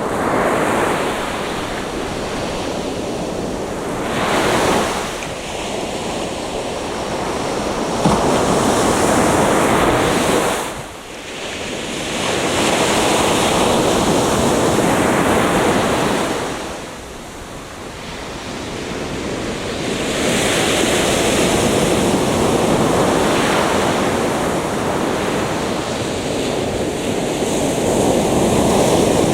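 Atlantic Ocean surf breaking on a beach: a continuous rushing wash that swells as each wave breaks and eases between them, with short lulls about eleven seconds in and again around eighteen seconds.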